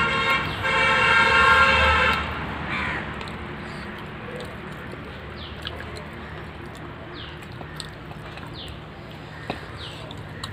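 A loud horn holds one steady tone for about the first two seconds, then cuts off. After it, a quieter outdoor background carries a string of short, high, falling bird chirps.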